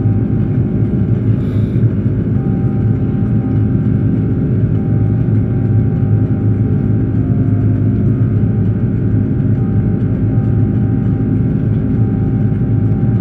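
Airbus A330-200 heard from the passenger cabin: a steady engine and airflow rumble with a few constant tones over it.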